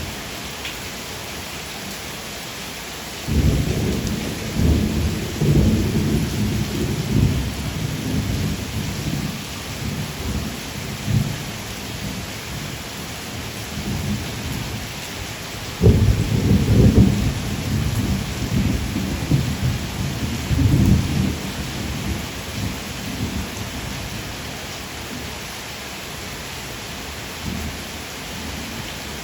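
Steady rain, with two long, low rolls of thunder. The first starts suddenly about three seconds in and the second about halfway through, each rumbling unevenly before fading away.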